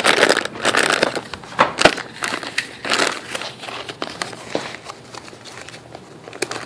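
Plastic snack bags crinkling and crackling as a hand rummages through them, busiest in the first few seconds and quieter after about four seconds.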